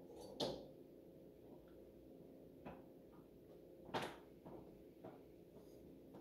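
Kitchen handling sounds: short knocks and clicks of things being moved about at the counter, the two sharpest near the start and about four seconds in, with a few fainter taps between, over a low steady appliance hum.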